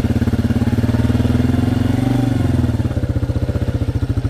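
Small off-road vehicle's engine running steadily while riding along a trail, its pitch rising slightly about two seconds in and then easing back.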